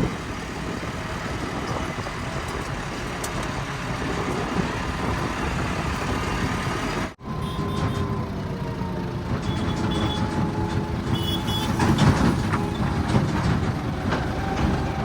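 Heavy diesel vehicle engines running steadily under load. The sound cuts off sharply about seven seconds in and resumes with a different engine carrying a thin steady whine, with knocks and clatter near the end.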